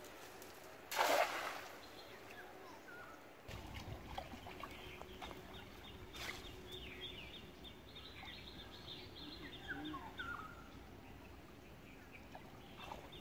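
A weighted cast net splashing down onto a pond about a second in, a short loud splash, followed by small birds chirping repeatedly in the background.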